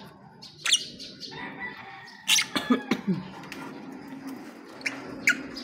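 Pet lovebirds giving short, sharp chirps: one about a second in, a quick run of several around the middle, and two more near the end.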